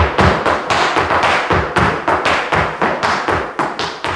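Hard-shoe Irish dance steps: shoes striking the floor in a quick, slightly uneven run of taps and stamps, about five strikes a second.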